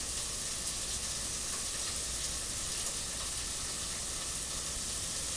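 Chicken pieces coated in guajillo chile sauce frying in fat, a steady sizzle.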